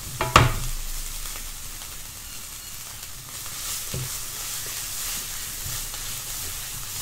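Sambal belacan (minced chili paste with belacan) sizzling in oil in a wok while it is stirred with a spatula, with a sharp knock of the spatula against the pan about half a second in and a lighter one about four seconds in.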